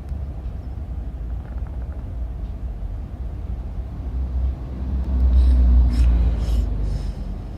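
Dog snoring with a low, rumbling drone, swelling into one louder, longer snore about five seconds in.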